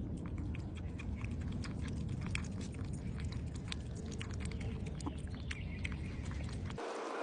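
Stray cats crunching dry cat food: many small irregular clicks, over a low steady rumble that stops abruptly near the end.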